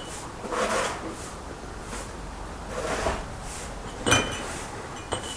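Water pouring from a samovar's tap into cut-glass tea glasses in two short runs, with a sharp glass clink about four seconds in.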